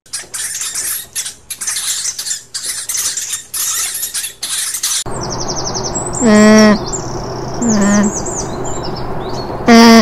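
A rapid run of scratchy, rustling bursts from hamsters, then an alpaca giving three short, loud hums, with small birds chirping faintly behind.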